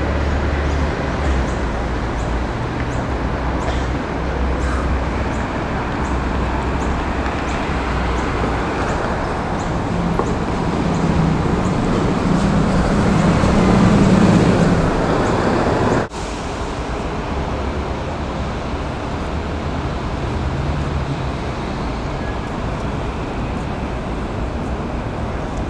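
Steady city street traffic noise. It builds to its loudest as a vehicle passes close by around 14 seconds in, then breaks off abruptly at an edit about 16 seconds in, and the traffic noise continues more evenly after it.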